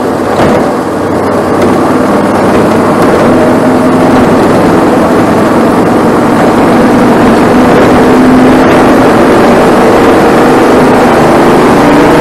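Onboard sound of a Bandolero race car's Briggs & Stratton 570cc Vanguard engine running hard at racing speed, loud and close to the microphone. It dips briefly about half a second in, then holds high revs steadily.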